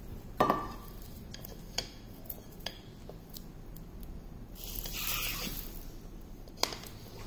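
A plastic flea comb clinking against a metal bowl as ticks are combed from a dog's coat and rinsed off: a few sharp clinks, the loudest near the start. About five seconds in, a pump sprayer hisses for about a second.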